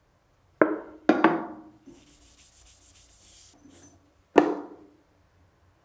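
Three sharp knocks, each with a short ringing tail, two close together early and one about four seconds in, as the can of sanding sealer is handled and set down on the lathe. Between them comes a faint hiss of a cloth wiping cellulose sanding sealer over the turned wood.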